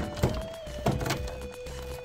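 Background music with long held notes, over three sharp knocks from a plastic action figure in its plastic bag being handled: one at the start, one a quarter second in and one just under a second in.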